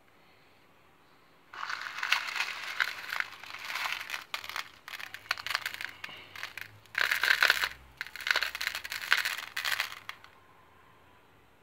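Small polished black stones clattering and clinking against each other and a plastic tub as a hand scoops and stirs through them. The rattling starts about a second and a half in and goes in uneven rushes until shortly before the end.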